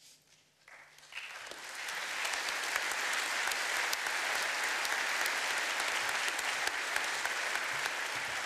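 Audience applauding: it starts about a second in, builds quickly and then holds steady.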